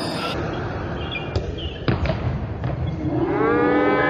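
A ball knocking on a hard indoor court floor a few times among short sneaker squeaks, then near the end a person's long shout rising in pitch.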